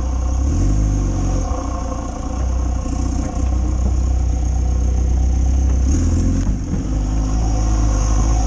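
Off-road competition vehicle's engine running hard and revving, its note rising and falling several times.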